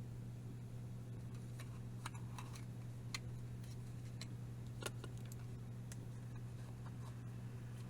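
Scattered light clicks and taps, the sort made by handling plastic disc and cassette cases and record packaging, over a steady low electrical hum. The loudest click comes about five seconds in.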